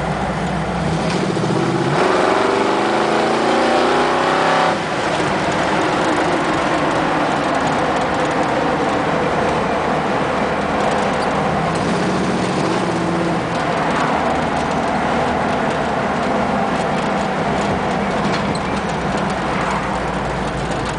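1973 Ford Bronco's 302 (5.0) V8 with dual exhaust, heard from inside the cab while driving. The revs climb for a couple of seconds, drop off sharply about five seconds in, then the engine runs steadily at low speed with a brief smaller rise midway.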